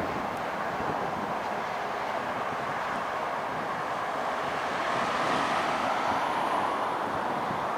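Steady vehicle noise with no horn, swelling a little about five seconds in and easing near the end.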